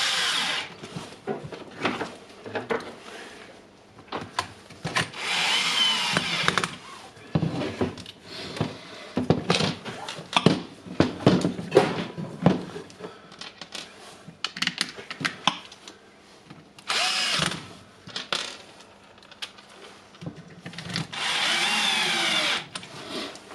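A small electric screwdriver runs in several short bursts of a second or two, its motor whine sliding in pitch as it drives screws, with clicks and knocks of metal and plastic parts being handled between bursts.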